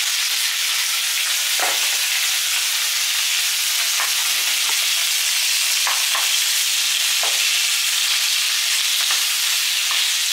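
Raw shrimp and onions sizzling in a hot frying pan as they are sautéed, the shrimp freshly added. A wooden spoon stirring them scrapes and knocks against the pan now and then.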